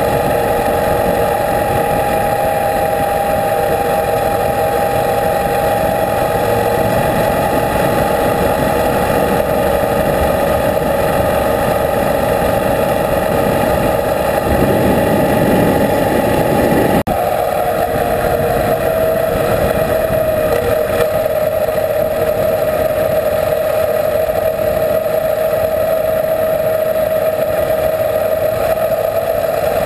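A motorcycle cruising at steady speed, most likely a Yamaha Super Ténéré with its parallel-twin engine, over a constant rush of riding wind on a bike-mounted camera. There is a brief break about 17 seconds in, after which the engine note settles a little lower as the bike runs on gravel.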